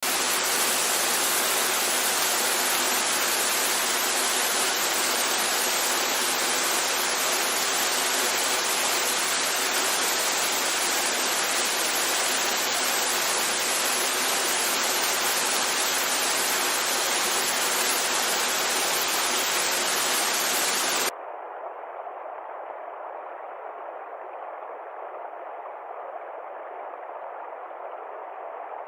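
Steady rushing water, like a waterfall or fast stream, with no changes in its flow. About two-thirds of the way through it cuts suddenly to a quieter, muffled version with the deep and the hissy top end gone.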